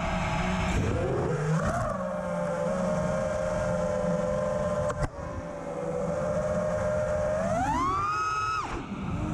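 Brushless motors and propellers of a 6S 5-inch FPV freestyle quadcopter whining at a steady pitch. About eight seconds in the whine rises sharply as the throttle is punched, then drops abruptly.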